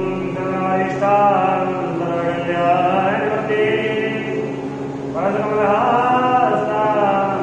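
Hindu puja mantras chanted in a sung recitation, in phrases with short breaks between them, over a steady low hum.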